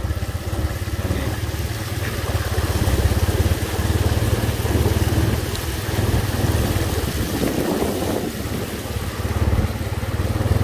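Small motorbike engine running steadily while riding through shallow floodwater, with a steady rushing noise of water and wind over it.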